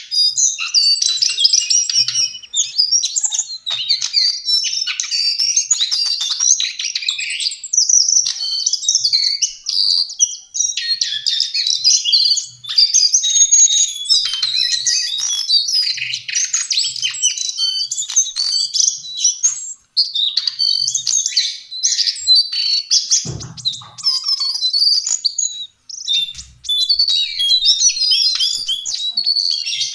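Lesser shortwing (cingcoang coklat, Brachypteryx leucophrys) singing a rapid, jumbled high warble of chirps and trills, almost unbroken apart from two brief pauses. There is a single low thump about three-quarters of the way through.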